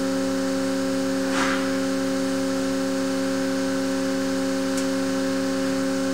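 Steady machine hum holding several pitches, from the test rig's equipment, with a short hiss about a second and a half in and a faint tick near five seconds.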